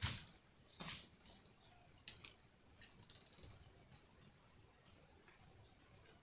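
Steady high-pitched insect drone from the forest, with a few soft clicks and rustles in the first couple of seconds from hands handling fishing tackle.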